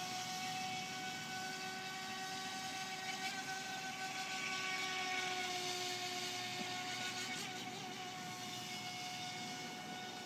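FT007 mini RC speedboat's small electric motor running with a steady high-pitched whine that eases down slightly in pitch, over a rushing hiss that swells around the middle.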